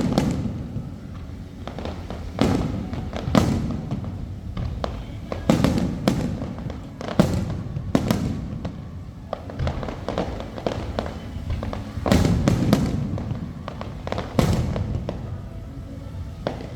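Aerial fireworks bursting in a display: about a dozen sharp bangs at uneven intervals, some in quick pairs, each followed by a low rumbling boom.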